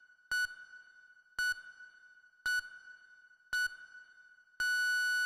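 Quiz countdown timer sound effect: four short electronic beeps about a second apart, then one long steady beep near the end marking time up.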